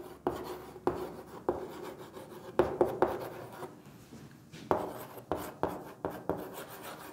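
Chalk scratching and tapping on a chalkboard as a word is written out in short, uneven strokes.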